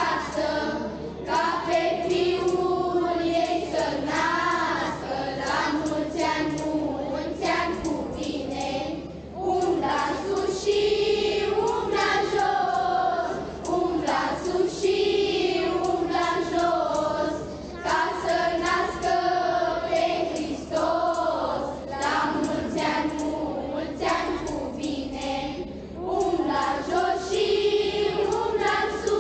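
A choir of children singing a Romanian Christmas carol (colindă) together, continuously.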